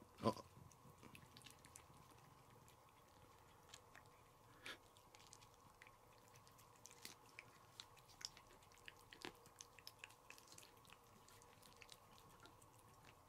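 A domestic cat licking paste treat from a squeeze tube: faint, irregular wet clicks of tongue and mouth, with one sharper click just after the start.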